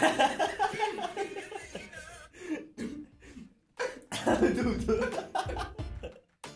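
Men laughing hard: a rapid run of laughs at the start, short breathy bursts a couple of seconds later, then another loud, coughing fit of laughter about four seconds in.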